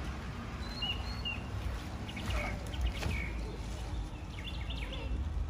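Outdoor ambience: a few short bird chirps about a second in over a steady low rumble, with faint voices in the background.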